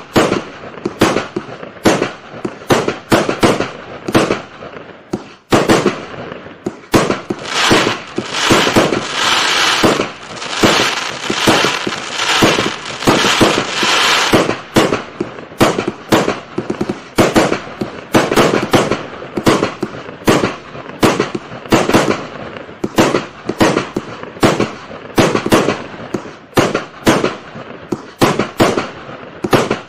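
A 300-shot, 25 mm consumer firework cake firing shot after shot, about two sharp reports a second. From about a quarter of the way in to about halfway the shots come thick and overlapping into a dense crackling stretch, then return to separate reports.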